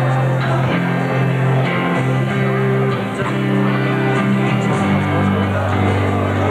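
A small rock band playing live, with electric guitar and bass guitar over held chords and a bass line that steps between notes. There is no singing yet.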